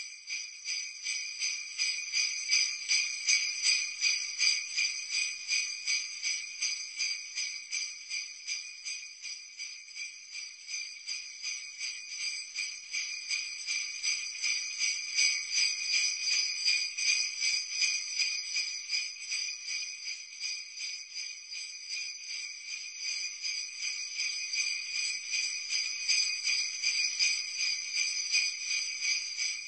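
Sleigh bells jingling, shaken in a steady rhythm of about two to three shakes a second.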